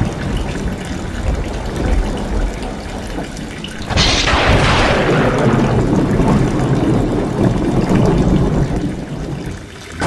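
Rainwater pouring in a stream off the edge of a tiled roof and splashing down, with rain falling around it. The splashing turns suddenly louder and brighter about four seconds in, then eases off.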